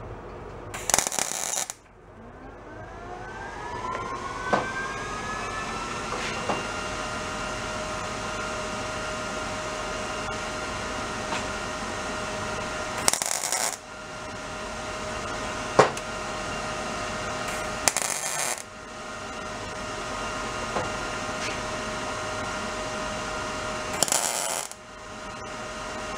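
MIG welder laying four short tack welds on a thin motorcycle exhaust pipe patch: each tack is a brief burst of arc crackle. Between the tacks a steady hum runs, rising in pitch and settling after the first tack.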